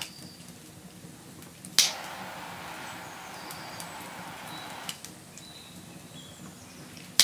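Butane jet torch lighter clicked on about two seconds in, then hissing steadily for about three seconds as it is held to a cigar before shutting off. Faint bird chirps in the background.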